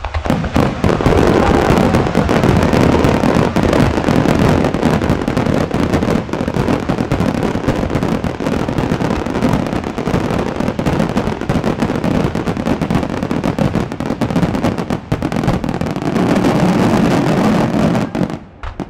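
Starmine fireworks barrage: many shells launched and bursting in quick succession with crackling, loud and without let-up, then stopping abruptly near the end.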